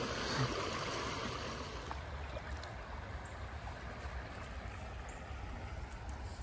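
Shallow stream flowing over stones: a steady wash of running water.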